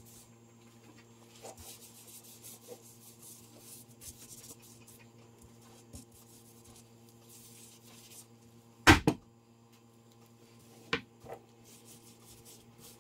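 A cloth rubs faintly along a wooden walking stick as it is wiped down, over a steady low hum. A loud wooden knock comes about nine seconds in, with a lighter one about two seconds later, as the stick is moved about on the table.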